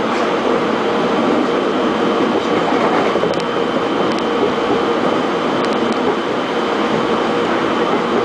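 Interior of a Korail 311000-series electric subway car running at speed: steady rolling noise of the wheels on the rails, with a faint steady whine over it.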